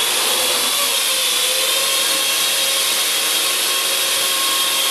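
Parrot AR.Drone quadcopter's electric motors and propellers whirring steadily as it lifts off and hovers; the pitch shifts a little in the first second, then holds steady.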